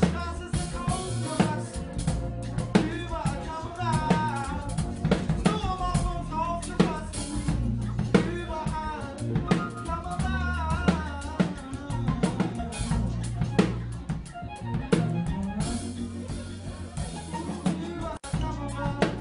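Live band music: an acoustic drum kit plays a steady beat with bass drum and snare, under a low bass line, a guitar and a sung vocal.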